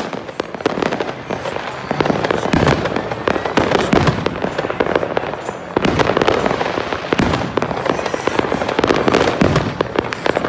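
Many fireworks going off at once: aerial shells bursting in a dense, near-continuous run of bangs and crackling. It grows louder about two seconds in and again about six seconds in.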